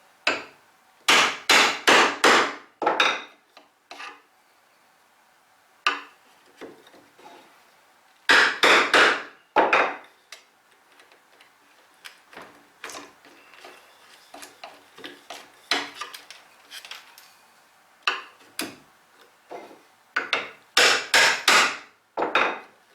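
A hammer striking a mortise chisel, driving it into soft pine. The blows come in three runs of several quick strikes: about a second in, around eight seconds in, and near the end. Quieter knocks of the chisel sound in between.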